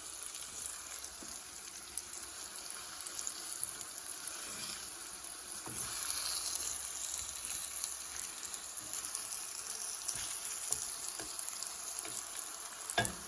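Thin slices of green plantain frying in melted butter in a pan, a steady sizzle that swells a little about halfway through, with a few faint clicks.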